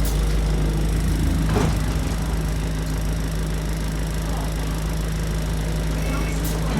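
Diesel bus engine running steadily with a strong low drone inside the cabin, a brief knock about a second and a half in. Near the end the bus's bell sounds a short high two-note chime.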